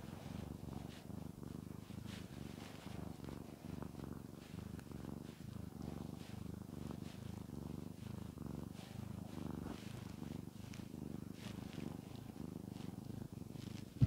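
A cat purring steadily in a low, even rumble while being stroked.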